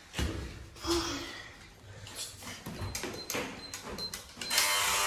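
Clicks and knocks of an apartment door's knob and latch being handled, with a rush of noise and a sharp clack near the end as the door is worked open.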